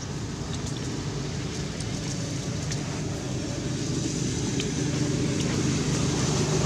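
A steady low engine hum that slowly grows louder, with a few faint ticks.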